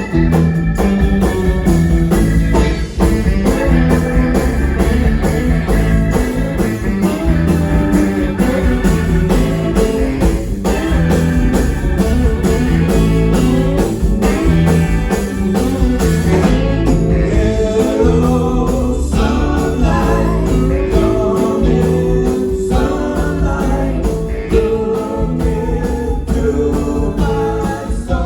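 Live band playing a song, with a steady drum beat under pitched instruments.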